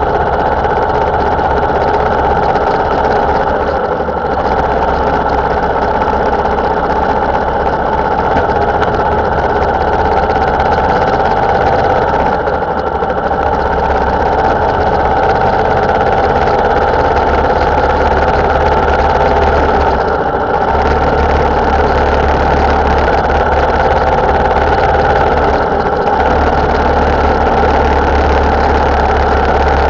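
Motorcycle engine running steadily under way, with a few brief dips in level, picked up by a camera mounted on the bike.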